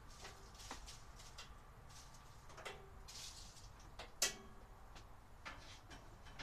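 Scattered light clicks and knocks, with one sharp knock about four seconds in.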